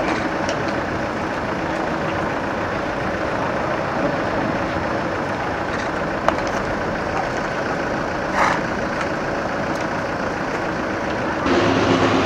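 Steady street noise of a crowd with a slow-moving car engine running at low speed; a sharp click about six seconds in. In the last second, drums and band music start.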